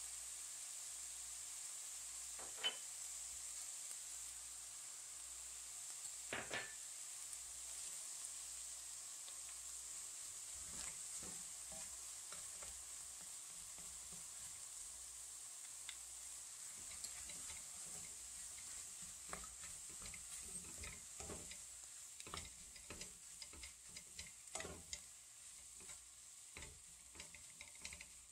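Beef, vegetables and soybean and chili pastes stir-frying: a faint steady sizzle, with the scrapes and taps of a stirring utensil against the pan, more frequent in the second half.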